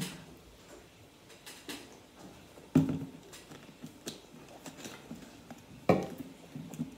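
Two sharp knocks about three seconds apart, with light clicks and handling noise between them, as plastic drink bottles are handled at a table.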